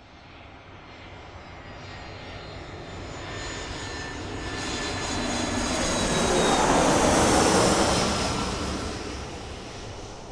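Airplane flying past: its engine noise builds steadily, is loudest about seven seconds in, then fades as it goes away, its pitch sagging slightly as it passes.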